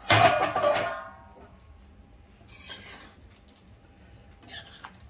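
A stainless-steel pan lid clanks down against the kadai and rings briefly, then a ladle scrapes and stirs through the thick curry in the steel pan a few times.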